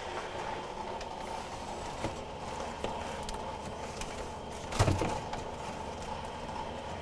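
Refrigerator door being opened and items moved about inside, over a steady low hum. There is a faint click about two seconds in and a louder knock about five seconds in.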